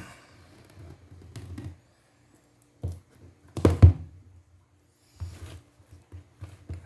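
Handling of a gimbal's retail box and packaging during unboxing: a series of irregular knocks and thuds, the loudest a little under four seconds in.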